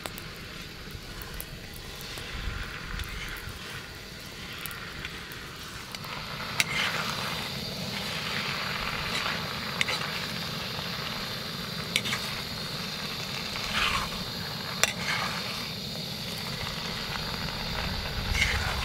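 Pasta with sauce sizzling in a hot pan while being stirred. A utensil scrapes and knocks against the pan every few seconds over the steady sizzle.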